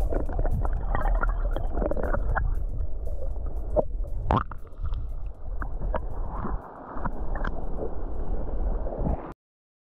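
Muffled underwater sound from a camera submerged in shallow coastal water: water sloshing and gurgling against it, with a low rumble and scattered small clicks and bubble pops. It cuts off suddenly near the end.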